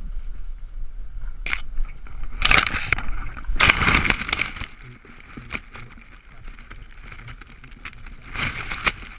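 Dry grass and heather rustling and crackling against a body-worn camera as the wearer moves low through it, in several loud scraping bursts about two and a half, four and eight and a half seconds in, with a few sharp clicks between.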